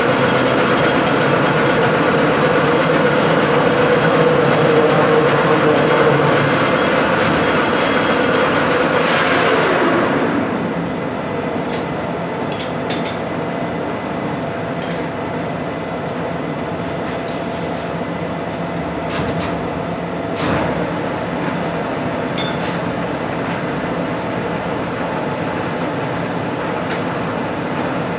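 A machine running steadily, then winding down about ten seconds in with a falling whine, leaving a quieter steady hum with a few scattered clinks.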